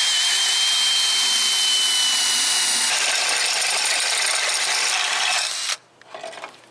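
Power drill running steadily as it bores a hole, with a high whine for the first three seconds or so, then cutting off abruptly near the end.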